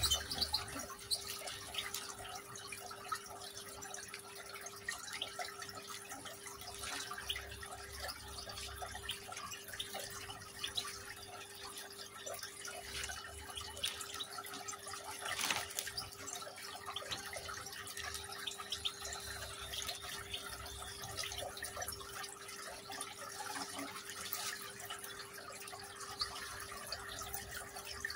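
Small decorative rock fountain trickling and dripping steadily, with a steady hum underneath.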